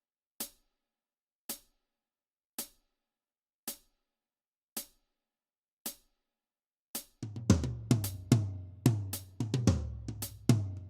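Background music: a lone sharp tick about once a second, then a full drum kit and bass come in about seven seconds in.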